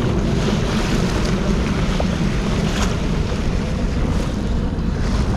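Steady wind buffeting the microphone over the wash of water around a boat on the open sea.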